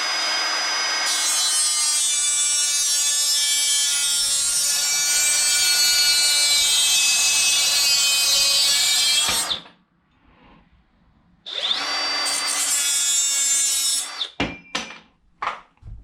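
Small handheld power saw cutting a Wiremold raceway fitting, its worn blade too small to cut through in one pass. The saw runs steadily for about nine seconds and winds down. It runs again for a couple of seconds, followed by a few handling knocks near the end.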